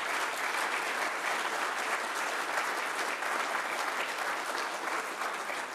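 Audience applauding: a large room of steady clapping that begins to ease off near the end.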